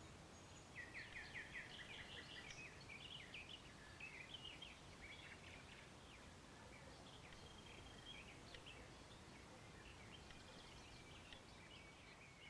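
Faint birdsong: rapid chirps and trills, busiest in the first five seconds and sparser after, over a low steady hiss.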